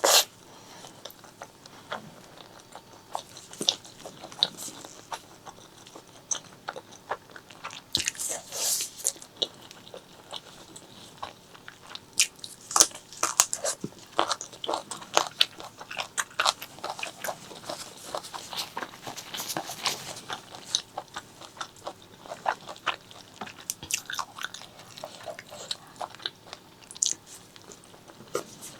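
Close-miked eating sounds: a person biting and chewing spicy pork leg curry with rice, many sharp wet mouth clicks and crunches at an irregular pace, thickest from about eight seconds in. A sharp click right at the start is the loudest sound.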